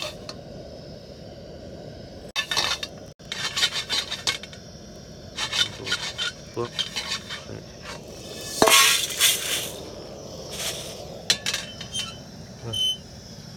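Coriander seeds rattling and scraping against a dry stainless-steel frying pan as they are stirred, in short irregular spells, with a louder rush of seeds on steel about two-thirds of the way through.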